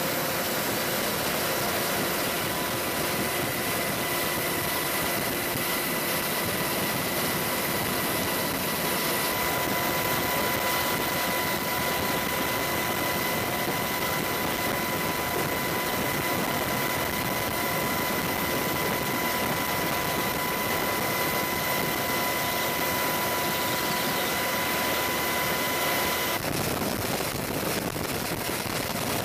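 AH-64 Apache attack helicopters flying past: a steady rushing rotor and engine noise with a constant high turbine whine. The sound changes abruptly near the end.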